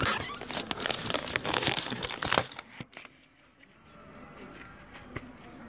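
Crackling, rustling handling noise as a phone is moved about and settled on dry dirt ground. It stops suddenly about two and a half seconds in, leaving faint background.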